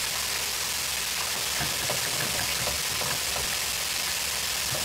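Pork chops deep-frying in hot oil in an electric deep fryer: a steady, even sizzle.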